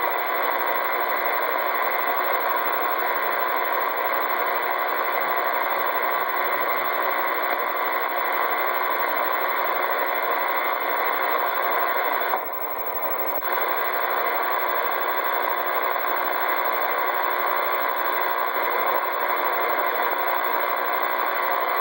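Steady radio static: an even hiss from a two-way radio's receiver with nothing spoken over it, dipping briefly about twelve seconds in.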